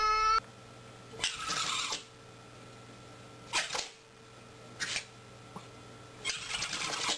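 A pet sneezing several times: short, sharp sneezes about a second in, near the middle and again around five seconds, then a longer breathy noise near the end. A high whine cuts off just after the start.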